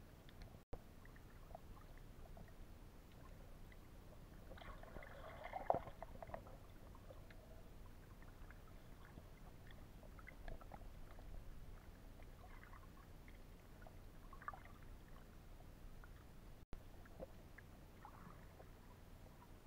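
Faint, muffled underwater ambience picked up by a submerged camera: a low steady water hum with scattered small clicks and crackles, which bunch into a denser patch about five seconds in.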